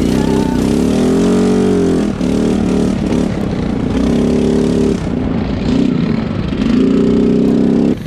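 Quad bike (ATV) engine under the rider, revving up and easing off several times as the throttle is worked; the pitch swells and falls about a second in, then holds high in two loud stretches later on.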